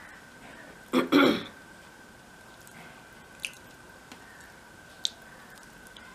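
A woman clears her throat in a short two-part burst about a second in, after a mouthful of very spicy chilli soyabean curry and rice. Then come two small clicks of eating by hand, over a faint steady whine.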